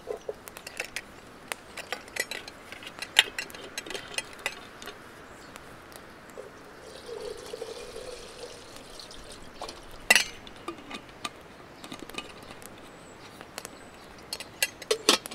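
Water poured from a stainless steel vacuum flask into a small metal camp kettle for about two seconds, starting about seven seconds in. Around the pour are scattered clicks and clinks of the flask and pot being handled, and a sharp knock about ten seconds in.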